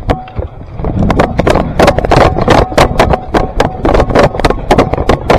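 Airsoft guns firing, a fast, irregular string of sharp cracks that starts about a second in and keeps going.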